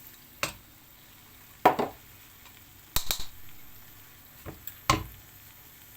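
Kitchen utensils and dishes knocking and clattering, five or so sharp separate knocks with a quick double about halfway.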